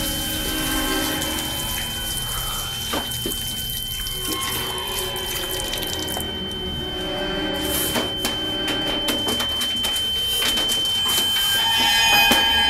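Water running from a tap into a sink and splashing, under a steady high-pitched tone.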